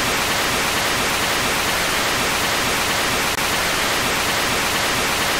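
Loud, steady hiss of TV static, the white-noise sound effect of a VHS-style video end screen.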